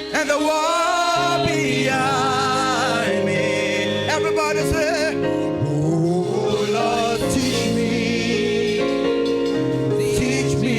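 Gospel music: singing with strong vibrato over steady, sustained accompaniment chords.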